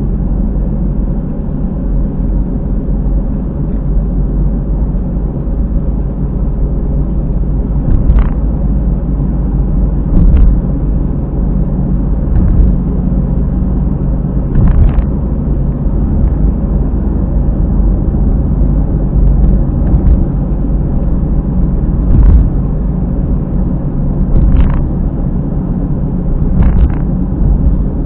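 Honda car driving on the road, heard from inside: a steady low tyre and road rumble, with a short thump roughly every two seconds. The noise comes from near a rear wheel and is taken for a failing hub bearing.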